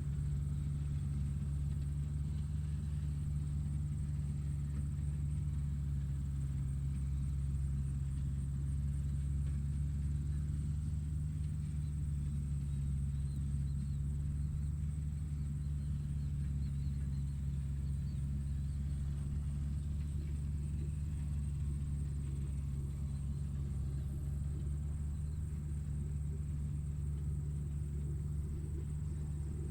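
Steady, engine-like low rumble of heavy machinery running, with a faint high whine above it.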